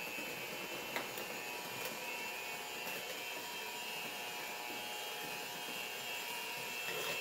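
Electric hand mixer running steadily with a whine, its beaters whipping a thick egg-and-sugar batter, with a few faint clicks along the way.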